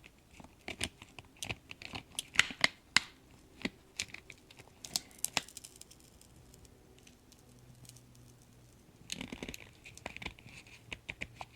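Irregular sharp clicks and taps of a thin plastic pry tool working under a MacBook Pro's glued-in battery, levering it slowly away from the aluminium case. After a quieter spell, a stretch of scraping and crackling comes near the end.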